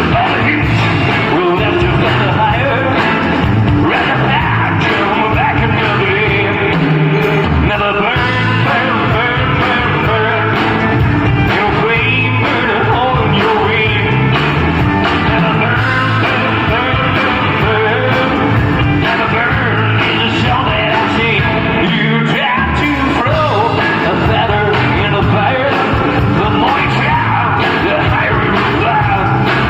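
A rock band playing loudly, with a singer.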